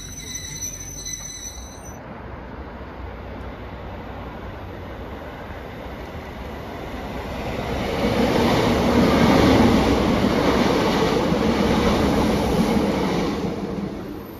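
Northern Class 150 diesel multiple unit passing: engine and wheel noise builds, stays loud for several seconds, then dies away near the end.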